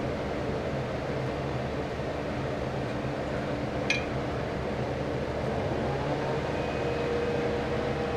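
Steady mechanical hum and hiss with a few low, even tones, and one short click about four seconds in.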